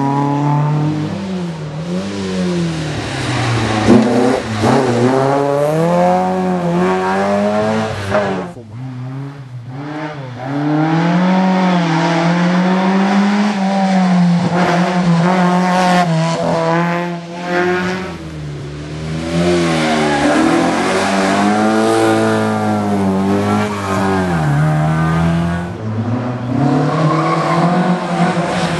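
Historic rally cars' engines revving hard and lifting off as each car takes the corners, the pitch climbing and falling again and again. There are short lulls between cars about a third and two thirds of the way through.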